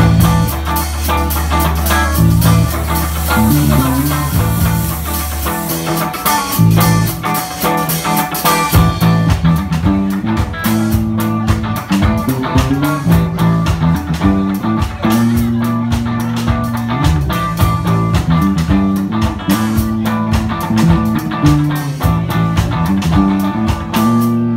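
Live rock band playing: electric guitars, bass guitar and drum kit. It opens on a long held low note, then the bass line moves and the drums settle into a steady beat about nine seconds in.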